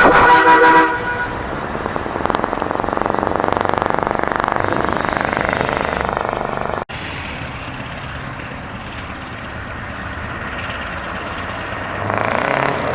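A loud multi-tone truck horn chord that stops about a second in, followed by a heavy truck engine running through an open, straight-through exhaust. The engine sound breaks off abruptly about seven seconds in, gives way to a quieter engine, and gets louder again near the end.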